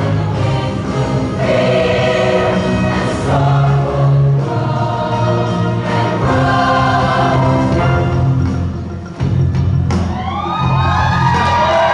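Women's show choir singing in full voice with live band accompaniment under a steady bass line. About ten seconds in, several voices slide upward in pitch.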